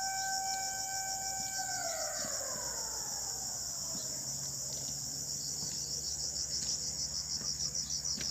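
Insects chirring in a steady, high-pitched, pulsing drone. A steady tone with overtones begins to slide down in pitch about one and a half seconds in and fades away a second or two later.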